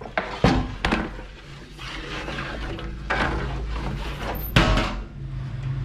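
Several sharp wooden knocks with scraping between them, from a baker's wooden peel and boards handling loaves in a communal bread oven.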